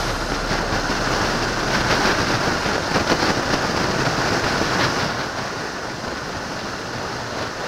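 Wind rushing over the microphone of a camera mounted on a moving motorcycle at road speed, a steady loud roar of wind and road noise.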